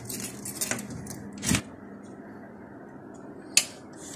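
Wooden showcase cabinet being unlocked and its door opened: a run of small clicks and knocks over the first second and a half, ending in a sharper knock, then another sharp knock near the end.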